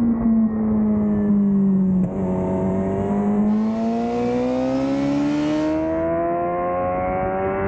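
Suzuki GSX-R600's inline-four engine under load through a corner. Its pitch sags slightly for about two seconds, then climbs steadily as the throttle opens on the exit. Wind rush on the microphone runs from about three and a half seconds in to about six.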